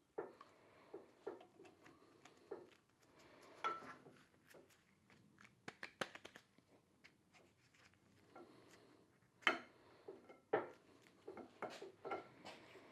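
Hydraulic lift cylinder parts being handled and fitted: irregular light clicks and taps, with two sharper knocks about nine and a half and ten and a half seconds in.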